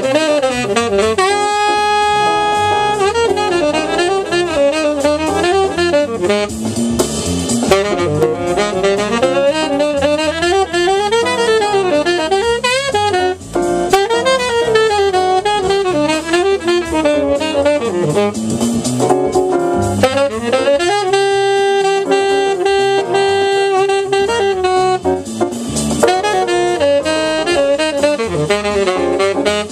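Tenor saxophone improvising on a B-flat blues. It runs through quick, winding melodic lines, holds one note briefly about two seconds in, and holds another for about four seconds later on.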